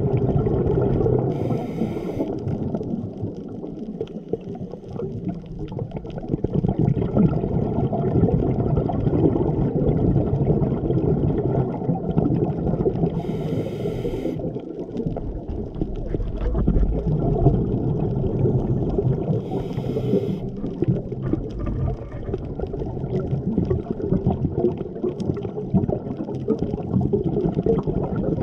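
Scuba diver breathing underwater through a regulator. Three short hissing inhalations come near the start, about halfway and about two-thirds through, between long stretches of gurgling, rumbling exhaled bubbles.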